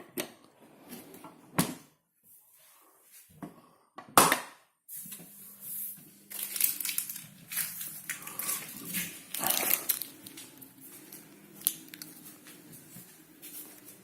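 A few sharp knocks, then about five seconds in a Neff dishwasher's pump starts up with a steady low hum under irregular crackling, rustling noise.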